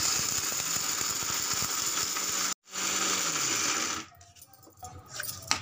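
Electric mixer grinder running at full speed, coarsely grinding almonds, with a very short break a little past halfway. It stops about four seconds in, followed by a few light clicks of the jar being handled.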